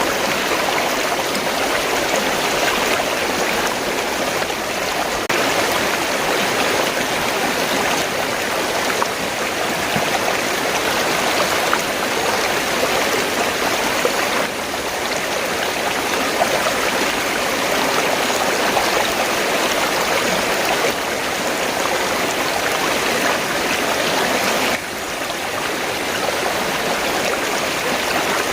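River water flowing in a steady, continuous rush, with a few sudden small shifts in level.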